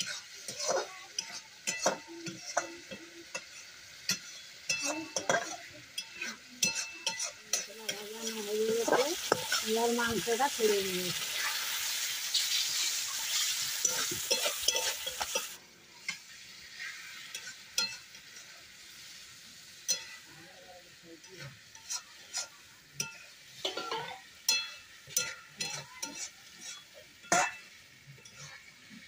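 Long metal spatula stirring and scraping masala in an aluminium pot over a wood fire, with repeated clinks against the pot. About seven seconds in, raw chicken pieces go into the hot masala and a loud sizzle rises for about eight seconds, then drops back to quiet frying under the stirring. A brief wavering call is heard as the sizzle begins.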